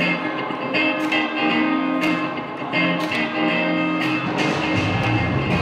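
Live band's electric guitars playing a choppy, strummed funk rhythm intro, with a low bass line coming in near the end.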